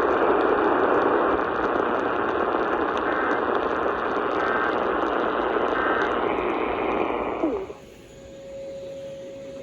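Radio static from a weather radio receiver: a loud, even hiss confined to a narrow band, like a weak or noisy broadcast signal. It cuts off abruptly about seven and a half seconds in, leaving a faint steady tone.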